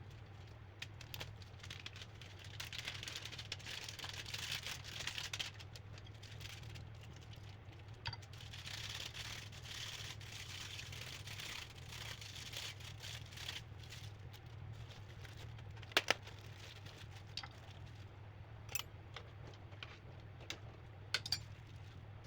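Home kitchen food-preparation sounds: stretches of rustling and scraping, then a few sharp clicks and knocks, over a steady low hum.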